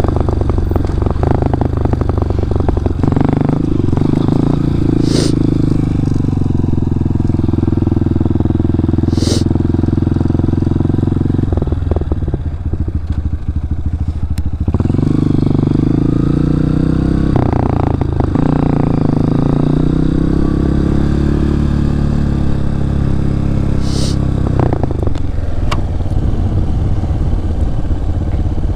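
Honda CRF230F dirt bike's air-cooled single-cylinder four-stroke engine running while riding. Its note rises and falls with the throttle and drops briefly about twelve and again about eighteen seconds in.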